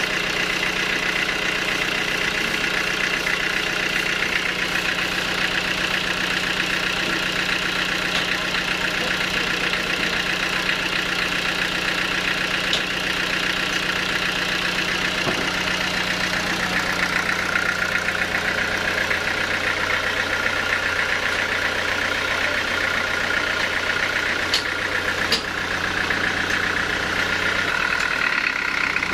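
Stationary engine that powers a home-built bandsaw mill, running steadily with an even drone and a high whine, with no cutting going on. Two short sharp knocks near the end.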